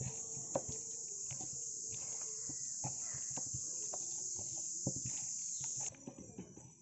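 Steady high-pitched trill of crickets that drops away sharply about six seconds in, over the wet squelching and occasional clicks of a hand kneading sticky marinated chicken in a steel bowl.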